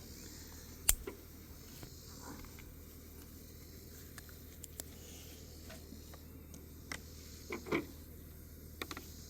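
Faint scattered clicks and taps of a pocket knife being handled, over a steady low hiss. The sharpest click comes about a second in, with a few smaller ones near the end.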